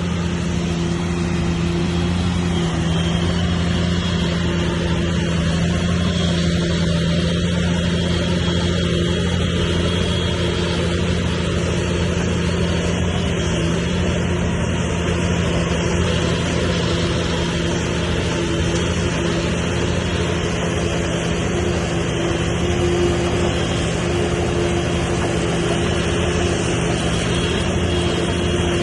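Bulldozer's diesel engine running steadily at a constant pitch.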